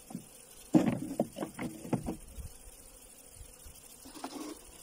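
A quick run of knocks and clatter from wooden beehive parts being handled, loudest about a second in and over within about a second and a half.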